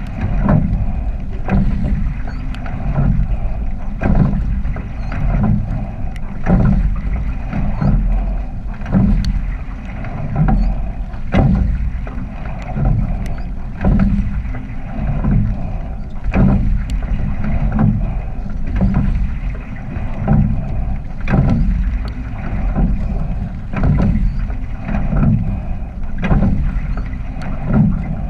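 Sculling shell under way at a steady stroke: a knock and splash of the oars recurring about every two and a half seconds, over water rushing along the hull and wind buffeting the microphone.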